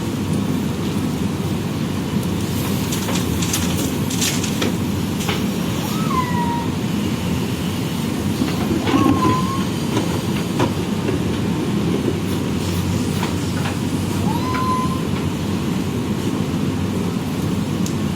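JCB backhoe loader's diesel engine running steadily under work, with scattered metallic clanks and knocks. Three short squeaks come about 6, 9 and 14.5 seconds in.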